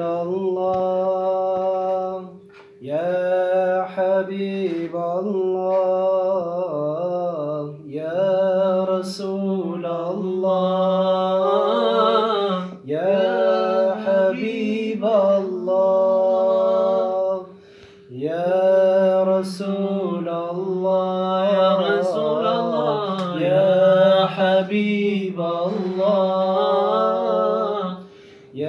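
A man sings an Islamic nasheed in Arabic, unaccompanied, in long ornamented phrases of several seconds each with brief pauses for breath between them.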